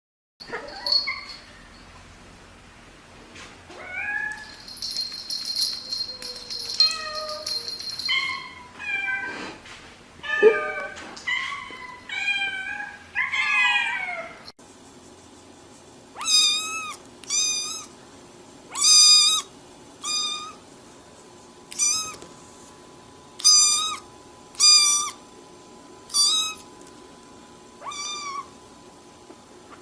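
Domestic cats meowing: first a run of varied meows that slide up and down in pitch, then, after a sudden change about halfway, a series of about a dozen short, near-identical meows, roughly one a second.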